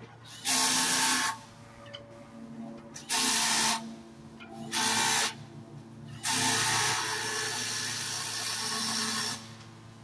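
A power tool run in four bursts: three short ones, then a longer one of about three seconds, each starting and stopping sharply, in the course of changing a flat tire for the spare.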